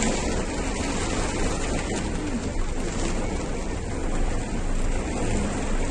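Heavy rain and strong wind: a steady rushing noise without a break.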